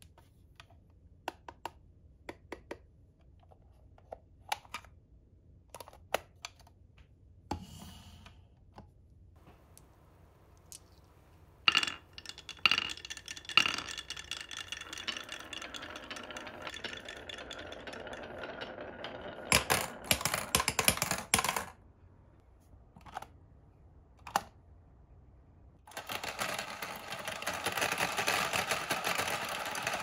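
Light plastic clicks and taps as toy mini washing machines are handled and set in place, then glass marbles rolling down a wooden wavy-track slope with sharp clacks, and a burst of loud clacks about twenty seconds in. From about 26 s the toy washing machines' small motors run steadily, marbles rattling around inside their spinning tubs.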